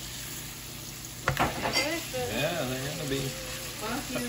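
Yellow squash slices sizzling as they fry in melted butter in a pan, stirred and turned with a utensil. A sharp clack of the utensil against the pan comes about a second in.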